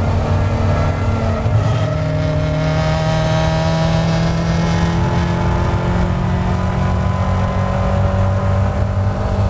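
Caterham Seven race car's engine, recorded from inside the open cockpit, pulling at full throttle in one gear. Its note rises slowly and steadily as the revs climb from about 4,500 to about 5,700 rpm.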